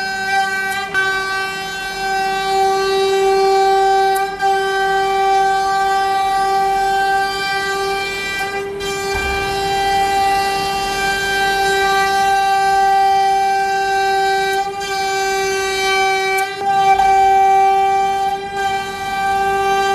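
Business Start CNC router spindle running at a steady high-pitched whine as the cutter surfaces its plywood table, with a few brief dips along the way.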